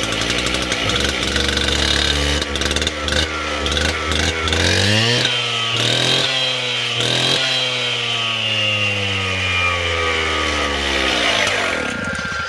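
Stihl TS420 concrete cut-off saw's single-cylinder two-stroke engine running just after starting on a new primer bulb. It runs roughly at first, is revved up in a few quick blips about halfway through and held at high speed with its pitch slowly sagging, then drops back shortly before the end.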